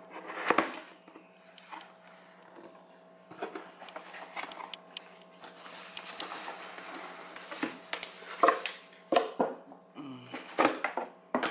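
A white cardboard box being opened and its packing handled: tissue paper and a foam wrap sheet rustling, with irregular sharp taps and knocks of cardboard, the loudest about half a second in and again near the end. A faint steady hum runs underneath.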